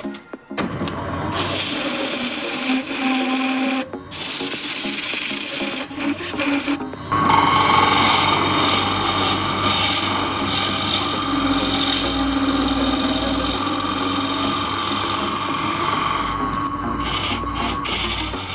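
Turning gouge cutting the outside of a small beech bowl blank spinning on a Union Graduate wood lathe: a continuous hissing, scraping cut with the lathe's hum underneath. It breaks off briefly a few times and is louder from about seven seconds in.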